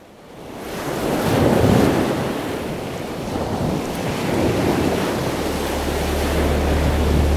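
A rushing noise swells up over the first couple of seconds, eases, and swells again about four and a half seconds in. A steady low hum comes in about five seconds in and holds.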